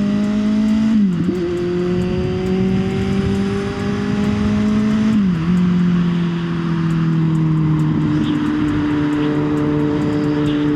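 Kawasaki Z900's inline-four engine pulling through the gears on the highway: the engine note climbs, drops at an upshift about a second in, climbs again, drops at another upshift about five seconds in, then holds a steady cruise. Wind rush runs under it throughout.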